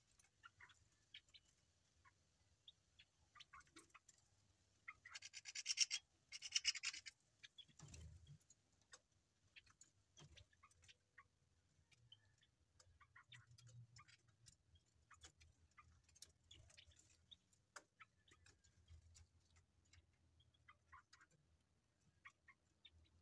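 Birds pecking at feed pellets, making faint scattered clicks and taps. About five to seven seconds in come two short, louder bursts of rapid high pulses.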